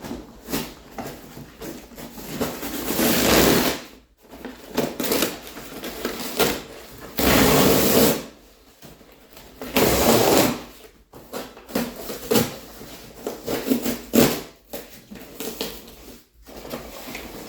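Cardboard shipping box and its packing being torn open and handled, with several bursts of ripping and scraping about a second long and short knocks and clicks in between.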